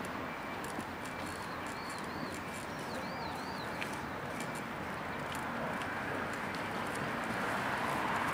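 Open-air ambience: a steady hiss of background noise, with a small bird giving short high chirps in two quick runs, about a second and about three seconds in.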